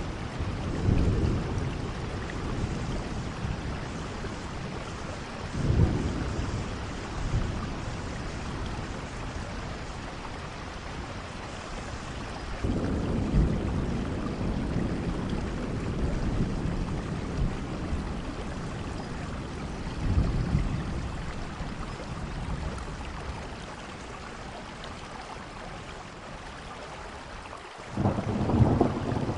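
Thunderstorm: steady heavy rain with thunder rumbling several times, a longer roll from about a third of the way through, and a sudden loud thunderclap near the end.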